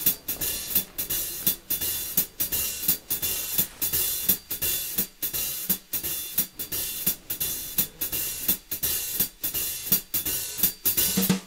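Music with a steady drum-kit beat: busy hi-hat and cymbals over snare and bass drum.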